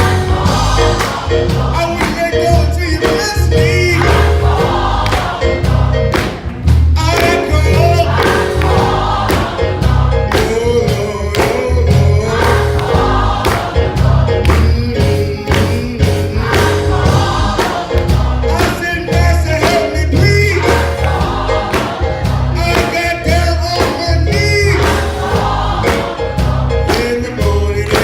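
Gospel choir singing, several voices in harmony.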